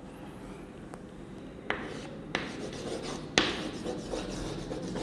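Chalk writing on a blackboard: a few sharp taps as the chalk meets the board, starting a little under two seconds in, then scratching strokes as the letters are written.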